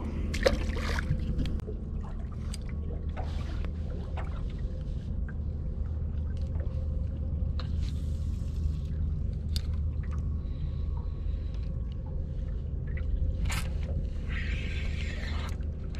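Steady low rumble with a faint steady hum on a small boat on the water, with water sloshing and scattered clicks of fishing tackle being handled.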